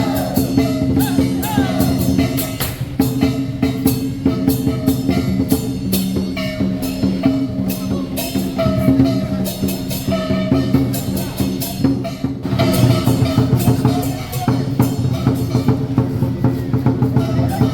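Music with a steady drum-kit beat under held bass notes and a gliding melody.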